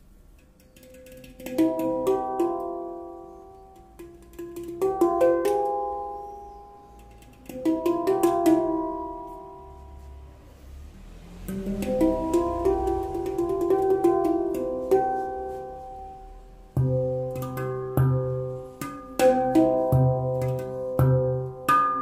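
A Tala handpan tuned to the Onoleo C scale, played by hand: phrases of struck notes that ring and overlap, with pauses between them. Later the playing turns into a quicker, steady rhythm with deep bass notes under the higher ones.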